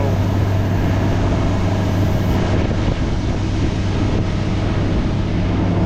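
Combine harvester engine running steadily at a constant speed while harvesting wheat, a low, even drone.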